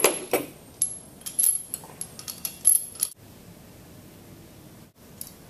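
Small stainless steel pump parts clinking and tapping against one another as they are handled and fitted, a quick run of light metallic clinks that stops about three seconds in.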